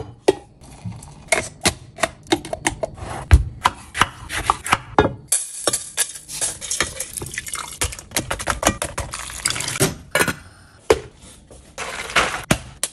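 A quick series of kitchen sounds: clinks and knocks of a glass and ingredients on a wooden cutting board, and whole spices going into a stainless steel pot. Then liquid is poured into the pot for several seconds. Near the end, steaming brine with orange halves is poured from the pot into a plastic container.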